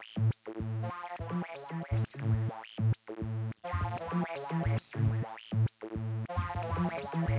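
Electronic synth loop sampled from the Dream Station DXi software synth, played back in a sample player: a quick rhythmic pattern of short pitched synth notes with sharp attacks.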